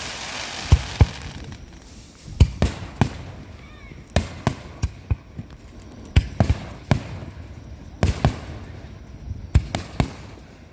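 Fireworks finale: aerial shells bursting in an irregular run of booms, many in quick pairs, with a hiss that fades away in the first second or two.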